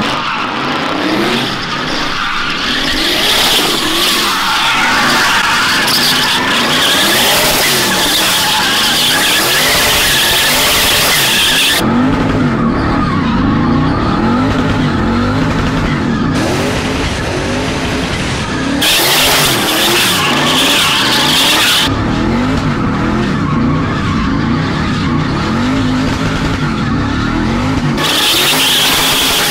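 Twin-turbo LS V8 of a Fox-body Mustang drift car revving up and down over and over while its tyres squeal and hiss through long slides. The sound changes abruptly several times.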